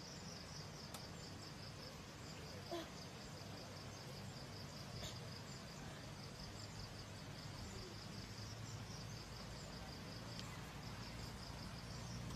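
Insects chirping in a steady, high-pitched pulsing trill over a low background rumble, with a couple of faint clicks.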